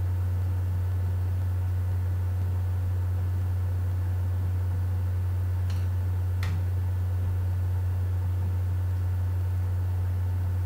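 Steady low hum with a faint hiss, unchanging throughout, with two faint clicks a little past the middle.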